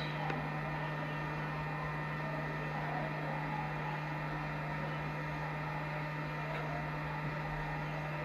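Hot-air rework station running with a steady hum and a constant rush of air while a VRM controller IC is soldered onto a motherboard.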